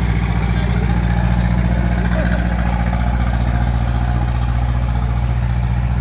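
Vehicle engine running steadily at an even speed, with a low, constant drone.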